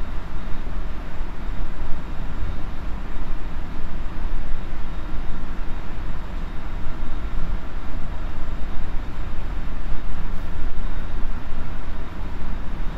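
Running sound inside a JR Central 373 series electric motor car (KuMoHa 373-8) at speed: a steady rumble of wheels on rails and running gear, with no marked change in pitch or level.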